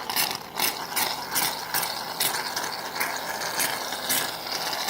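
Can of shaving cream being shaken, rattling rhythmically about two to three strokes a second.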